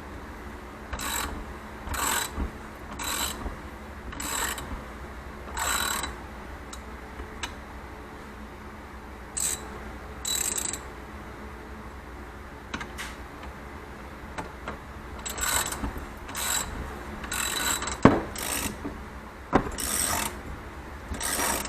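Ratchet wrench clicking in short strokes as it cranks down the threaded rods of a spring compressor, compressing a coil-over shock spring. The strokes come about once a second at first, pause, and then come in a faster run near the end.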